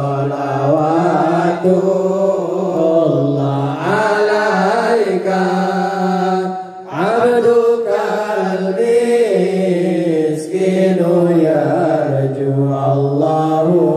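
A group of male voices chanting serakalan sholawat, Islamic devotional praise of the Prophet, in unison without instruments, in long drawn-out melodic lines. The chant breaks off briefly for breath about seven seconds in, then resumes.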